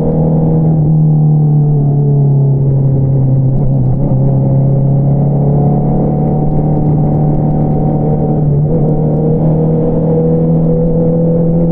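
Honda CBR650R's inline-four engine running through an Akrapovič single-outlet exhaust at a steady riding pace, its pitch easing gently up and down. About eight and a half seconds in the note briefly breaks, then the pitch rises again.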